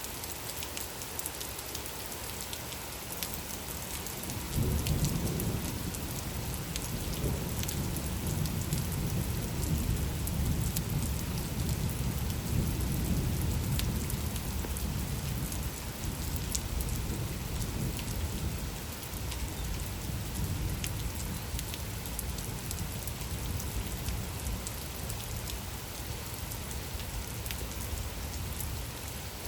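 Steady rain falling, with fine drop ticks throughout. About four seconds in, a low rumble of thunder sets in suddenly, rolls for around ten seconds and fades away.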